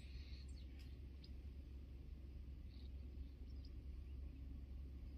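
Quiet outdoor ambience: a steady low rumble with a few faint, brief high chirps of small birds.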